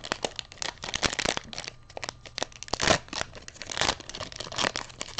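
A foil trading-card booster pack wrapper crinkling and tearing open in the hands. The crackles come thick and irregular, with the loudest about three and four seconds in.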